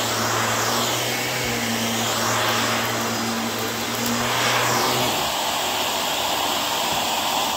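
Upright vacuum cleaner running on a shag rug. Its rushing air rises and falls as it is pushed back and forth, and a low hum drops out about five seconds in.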